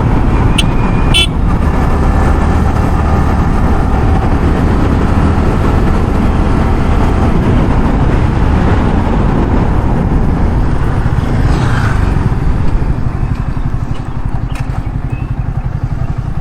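KTM Duke 250's single-cylinder engine running steadily as the motorcycle is ridden, with two short high beeps about a second in. The engine eases off a little near the end.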